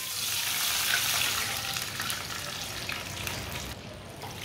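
Water poured from a bowl into a hot pan of oil and cumin seeds, splashing and sizzling as it hits the oil. The hiss starts suddenly and slowly dies down.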